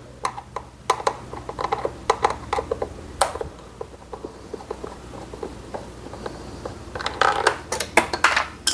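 Scattered clicks and light taps of a hand screwdriver working a small screw out of a motorcycle's plastic body panel, with one sharper click about three seconds in and a busier run of clicks near the end.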